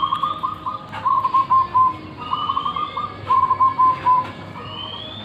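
Zebra dove (perkutut) singing two cooing phrases, each about two seconds long: a rapid rolling stretch followed by a run of short separate coos.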